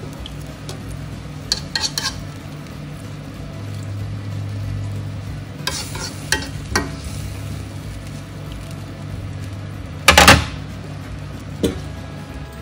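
A metal spatula scraping and tapping against a carbon-steel wok as chicken pieces are turned in simmering broth, with a low steady hum underneath. About ten seconds in, a stainless steel lid clatters loudly onto the wok, followed by a smaller knock.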